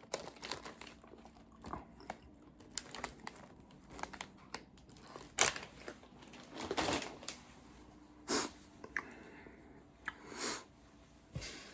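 Plastic chip bag crinkling and rustling in irregular short bursts, the loudest about five and a half seconds in.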